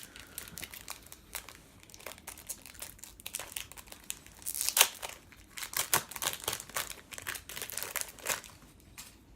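Crinkling plastic packaging and trading cards being handled, in short irregular rustles, the loudest about five seconds in.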